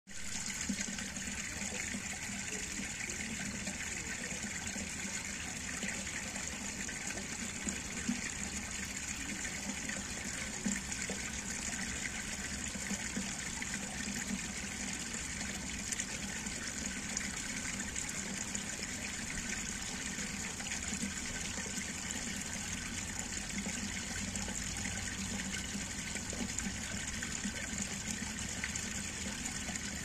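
Shallow water flowing in a thin sheet over cobblestone paving and fallen leaves, making a steady, even running-water sound.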